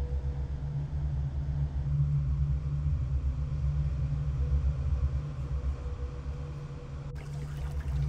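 Wind buffeting the microphone, a fluttering low rumble. About seven seconds in, the sound of trickling shallow water joins in.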